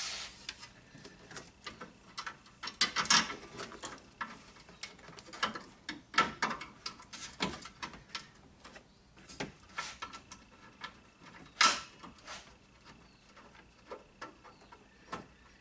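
Scattered light clicks and taps of hand work: long steel bolts rattling in the fingers and tapping against the car's radiator support as they are set into their holes. Two clicks stand out, about three seconds in and near twelve seconds.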